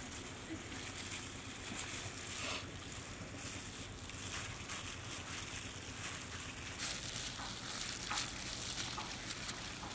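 Plastic-gloved hands rubbing wet spice marinade over a raw whole goat carcass: intermittent crinkling and squelching, more frequent toward the end, over a steady low hum and outdoor noise.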